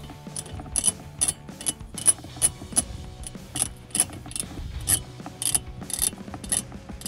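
Hand ratchet with a 10 mm deep socket clicking in short bursts, about two or three a second, as nuts are run down onto the jack-mount studs.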